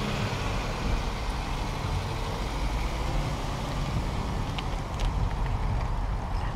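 Subaru XV driving slowly in a curve: a steady low rumble of engine and tyres, with a couple of faint clicks about two-thirds of the way through.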